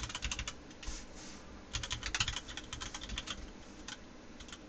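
Computer keyboard being typed on: quick runs of key clicks with short pauses between, as a web address is entered.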